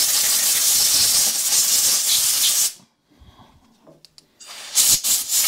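Compressed-air blow gun blasting dirt off the outside of a Honda lawn mower carburettor before it is taken apart. A loud hiss cuts off about halfway through, then a few short blasts come near the end.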